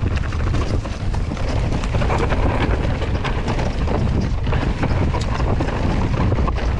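Mountain bike riding down a dirt trail: tyres rolling over the ground and the bike rattling with many small clicks, under a steady low rumble of wind on the microphone.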